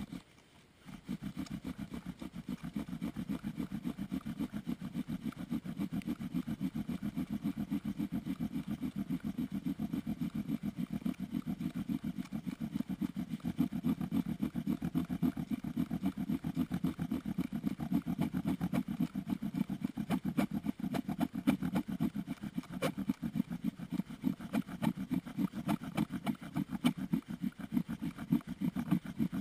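Bow drill in use: a wooden spindle driven back and forth by the bow grinds in the socket of a wooden hearth board, a steady low rough drone that swells and dips with the bow strokes, starting about a second in.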